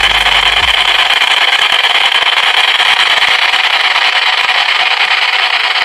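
Leotec portable radio used as a ghost box, sweeping through stations: a loud, steady hiss of static with a fast flicker.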